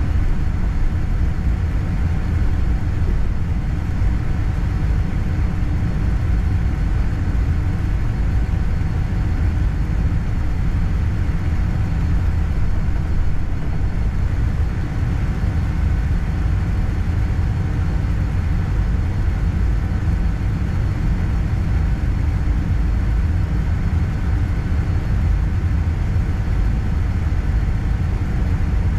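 Steady airliner cabin noise inside a Boeing 787-9: a constant low rumble of engines and airflow with a faint steady whine above it, unchanging throughout.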